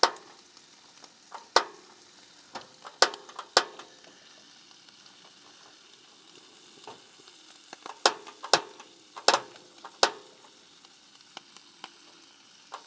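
Bacon and diced potatoes frying in a pan, stirred and turned with a utensil. There are about a dozen sharp clacks of the utensil against the pan, several of them close together around the middle, over a faint, steady sizzle.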